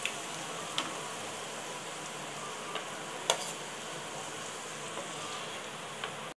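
Hot oil sizzling steadily in a pan as battered cauliflower pieces are lifted out with a metal skimmer after deep-frying, with a few sharp clicks, the loudest about three seconds in.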